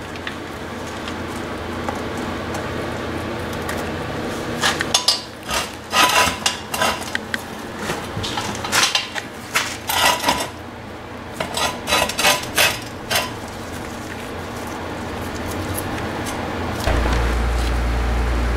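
Metal clinks and knocks of tools and brake caliper parts being handled while the caliper's slide pins and rubber boots are pulled out, with a run of sharp clinks through the middle.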